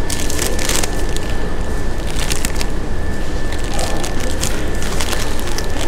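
Paper food wrapper crinkling and rustling as it is unfolded by hand, in irregular crackly bursts. Underneath runs a steady low hum with a thin, constant high tone.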